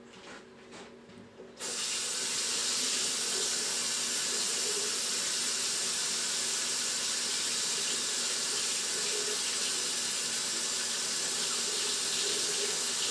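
Kitchen tap turned on about a second and a half in, water running steadily into the sink.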